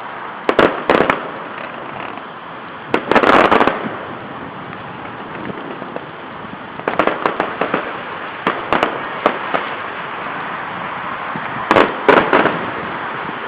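Fireworks going off in irregular bangs and pops: two sharp bangs near the start, a dense cluster about three seconds in, a run of quick crackling pops in the middle, and another short cluster near the end, over steady background noise.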